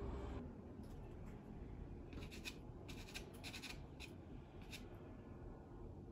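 Pastel scratching on sanded LuxArchival pastel paper in short, faint strokes that come in a few quick clusters.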